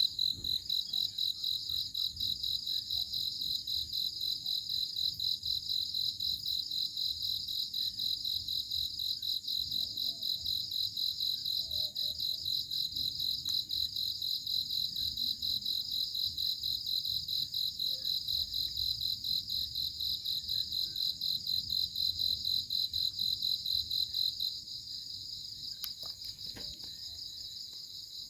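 Cricket chirping in a continuous, rapidly pulsed high-pitched trill. It drops to a quieter level about three-quarters of the way through, with a couple of faint clicks near the end.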